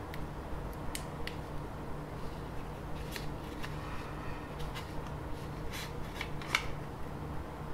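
Scattered light clicks and taps of a plastic digital caliper being slid open and handled against a small laptop's metal case, over a steady low hum.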